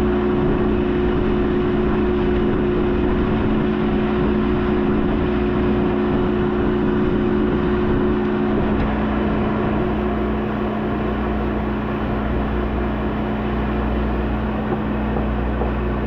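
Skid steer engine running steadily at a constant speed, with a slight change in its note a little past halfway.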